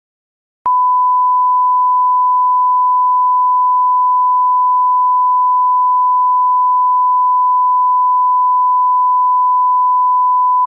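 Censor bleep: one steady, unwavering tone that starts with a click just under a second in, holds for about ten seconds, then cuts off.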